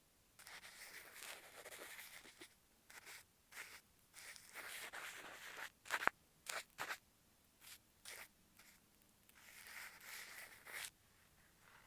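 Adhesive tape being pulled off the roll in three long ripping stretches, with a few sharp clicks about halfway through.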